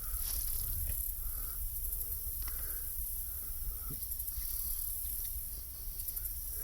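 Insects, crickets or cicadas, trilling in a steady high hiss with pulsing clicks, over a low wind rumble on the microphone.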